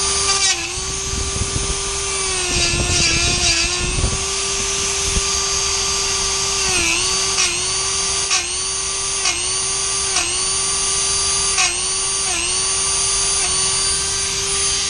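Dremel rotary tool with a small wire wheel running at a steady whine. Its pitch dips briefly again and again as the wheel is pressed against an aluminium microchannel coil to scrub the leak area clean for brazing.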